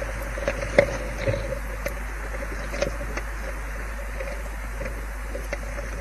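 Steady hiss and low hum, with a scattering of short sharp clicks and taps, the loudest about a second in and another near the three-second mark.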